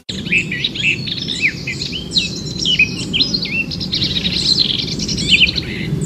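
Several wild birds calling at once: a busy run of quick chirps and short whistled notes, some sliding downward in pitch, over a steady low background noise.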